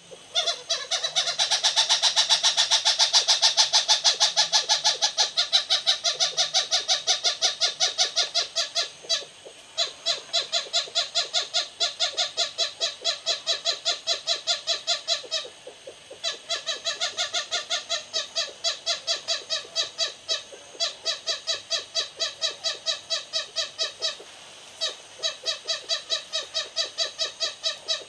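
Lesser bushbabies (Galago moholi) giving loud aggression calls: a rapid run of short, repeated calls, about four a second, with brief breaks now and then. Two rival animals are calling at each other in a territorial standoff.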